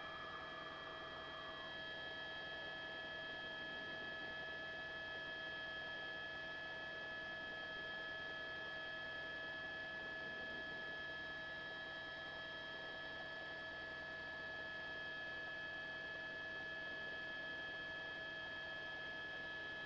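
Faint steady hum made of several held high tones, unchanging, with no sudden sounds.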